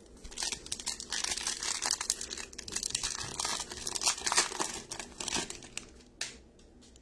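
Foil wrapper of a 2021 Bowman baseball card pack crinkling and tearing as it is ripped open, a dense run of crackles for about five seconds, followed by one short tick a little later.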